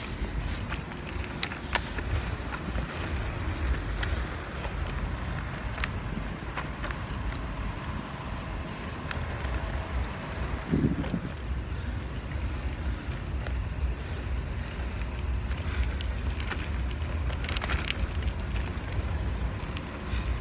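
Mountainboard wheels rolling on the road with wind buffeting the phone's microphone, a steady rough rumble with a few small clicks. A brief low sound stands out about eleven seconds in.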